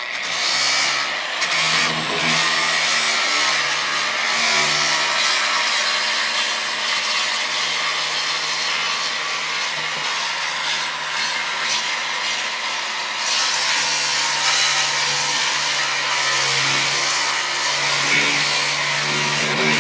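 Angle grinder with a coarse sanding disc grinding steadily on old fiberglass inside a boat hull. A tractor engine runs steadily underneath.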